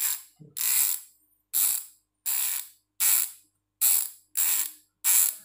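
Strummer MT-650 Microspline rear hub's freehub spun by hand in quick repeated flicks: about eight short bursts of loud, tightly spaced ratchet clicking, each dying away as the spin slows.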